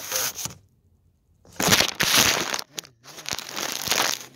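A phone being handled close to its microphone: a short rustle at the start, then two long stretches of loud scraping, rubbing noise as fingers move over the phone.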